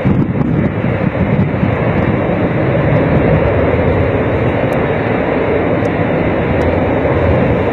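Aircraft engines running steadily, a loud, even noise with no breaks.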